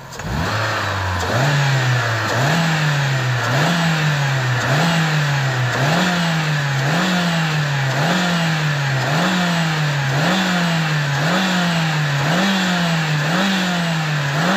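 Diesel car engine running and surging up and down in speed about once a second: each surge is a quick rise in pitch followed by a slower fall, in a regular beat-like cycle. The engine is hunting, the running fault being diagnosed.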